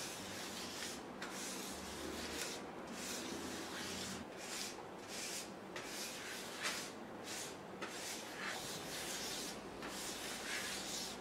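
Metal scraper spreading melted chocolate across a hard work surface: a steady run of scraping strokes, a little more than one a second.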